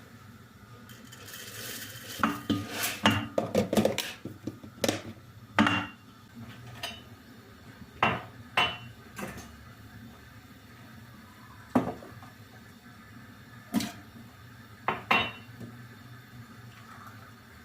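Dishes and utensils clinking and knocking: a quick run of clatter a couple of seconds in, then single clinks every second or two, some ringing briefly.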